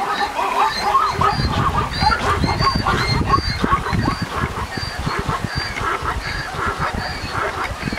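Plains zebras calling, many short overlapping barking yelps in quick succession, with a low rumble underneath from about a second in.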